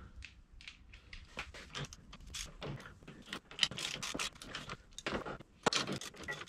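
Hand wrenches clicking and clinking in short, irregular taps as a nut is tightened down to clamp an ice-scratcher mount onto a snowmobile's aluminum suspension rail. The taps come thicker near the end.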